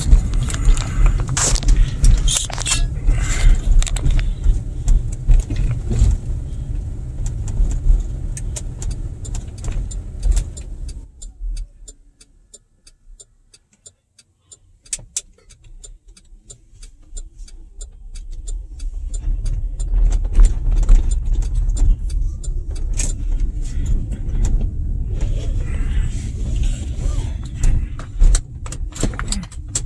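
Vehicle driving, heard from inside the cabin: a steady low engine and road rumble that fades almost away as it slows to a stop about eleven seconds in, then builds again as it pulls away. Light rattling clicks, like keys jangling, run through it.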